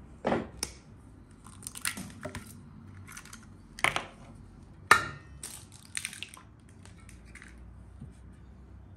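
Eggshells being cracked and broken open over an enamel basin: a series of sharp cracks and crunches over several seconds, the loudest about five seconds in.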